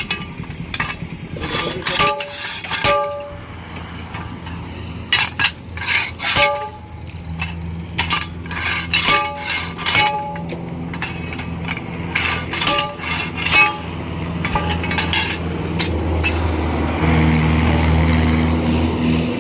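Metal tools striking and clinking against metal, each hit leaving a short ringing tone, in irregular runs, over a steady engine hum that grows louder near the end.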